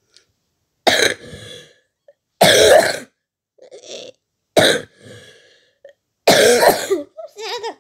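A person's voice doing four hard coughs, about two seconds apart, as of choking on food. Each cough trails off into a quieter breath, and a short pitched vocal sound follows near the end.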